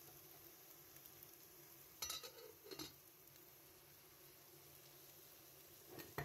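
Chopped vegetables frying faintly in oil in an aluminium pot. About two seconds in, an aluminium lid clatters twice as it is set on the pot beside it. Near the end a metal spoon knocks against the frying pot as the vegetables are stirred.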